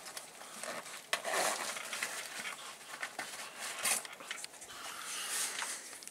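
Rummaging through belongings by hand: scattered small clicks, knocks and rustling as items are moved, with a louder knock about a second in and another near four seconds.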